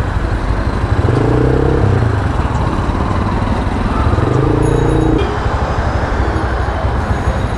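Taro GP V3 motorcycle riding in traffic. The engine runs under a constant low rumble, and its note swells twice: about a second in, and again around four seconds in.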